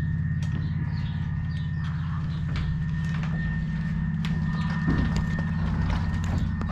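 Horse walking, its hooves clopping in an irregular beat of sharp clicks over a steady low rumble.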